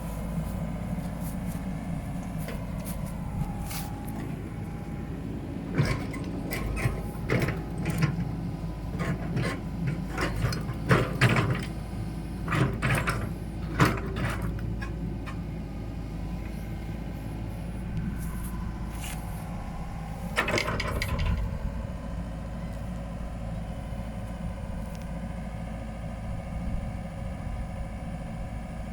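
Komatsu PC78UU excavator's diesel engine running steadily, with a run of sharp knocks and clanks through the middle and another short burst of them later.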